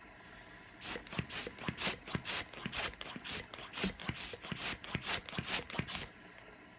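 Hand balloon pump worked rapidly, puffs of air rushing out about four times a second onto a fidget spinner to keep it spinning. The pumping starts about a second in and stops near the end.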